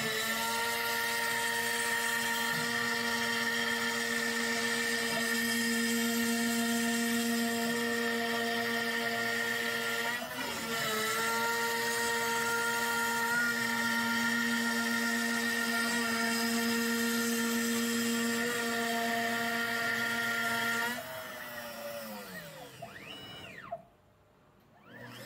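Spindle of a NymoLabs NBX-5040 desktop CNC router running at about 12,000 rpm, an end mill cutting a pocket in MDF, with a steady high whine. About 21 seconds in the program ends and the spindle winds down, its whine falling in pitch and fading out.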